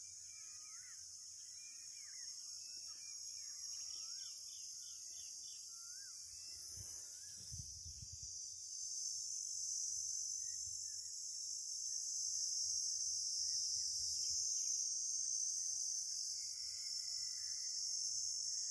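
Early-morning farmland chorus: a steady high-pitched insect drone that grows louder after about nine seconds, with several birds whistling and warbling over it in the first half, including a quick run of repeated notes. A few low thumps come about seven to eight seconds in.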